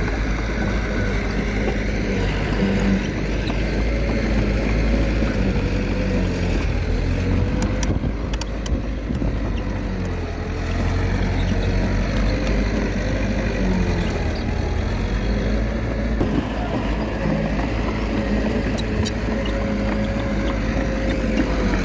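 Small crawler bulldozer's diesel engine running under load, its pitch dipping and recovering every few seconds as it works.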